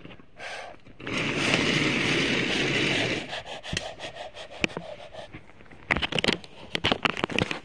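Handling noise from toy trains and a camera against a leather sofa: a steady rushing hiss for about two seconds from about a second in, then scattered scrapes, rubs and clicks.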